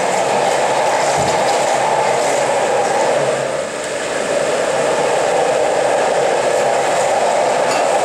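Countertop blender running steadily at high speed. Its sound dips and sags briefly about three and a half seconds in as more ingredient is poured in through the lid.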